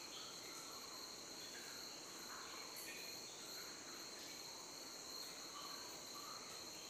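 Faint, steady high-pitched whine or trill, with quiet soft rustling as sterilised gauze is lifted out of a stainless steel drum.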